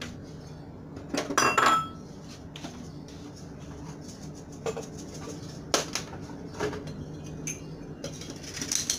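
Metal spoon and spatula clinking and scraping against a stainless steel pot and a ceramic bowl while serving rice, with a loud ringing clatter about a second in and a few sharp clinks after. Near the end a metal pot lid clatters as it is set back on the pot. A steady low hum runs underneath.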